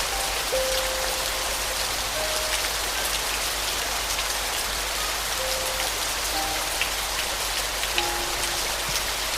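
Steady rain falling, an even hiss with small drop ticks, with soft piano notes sounding now and then, a single note every second or two.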